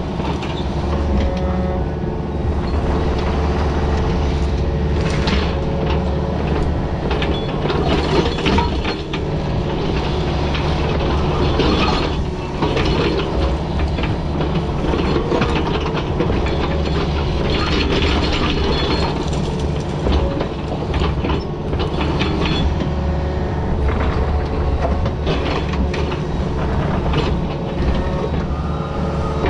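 Excavator's diesel engine running steadily under load, with the bucket repeatedly scraping and clanking against rock and dirt while digging.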